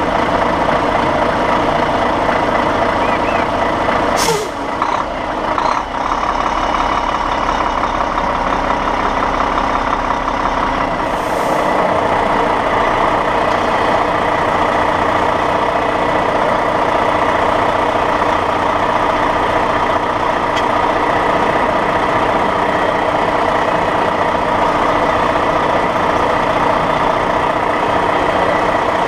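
Big-rig truck's diesel engine running steadily at low speed, heard up close from the front bumper. A sharp hiss of air about four seconds in and a shorter hiss about eleven seconds in are typical of the truck's air brakes.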